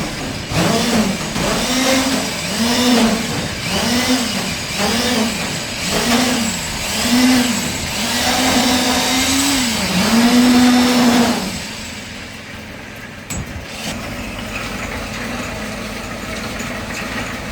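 Backhoe's diesel engine rising and falling in pitch about once a second, in repeated surges, then settling to a quieter, steadier running about twelve seconds in.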